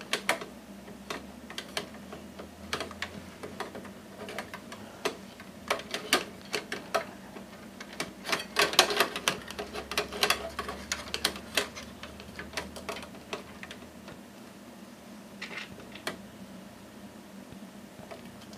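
Irregular clicks, taps and light knocks of metal and plastic as a hard drive is handled and fitted into a desktop PC's metal drive cage, with a dense run of clicks about eight to eleven seconds in.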